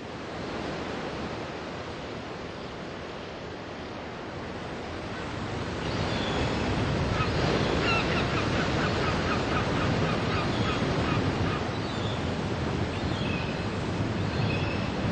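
Water washing against a rocky shore, a steady rushing noise, with birds calling in short repeated cries from about six seconds in.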